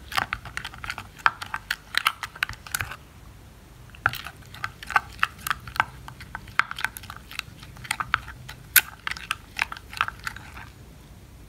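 Spatula stirring thick henna paste in a glass bowl: a fast run of wet, sticky squelching clicks. There is a short pause about three seconds in, and the stirring stops shortly before the end.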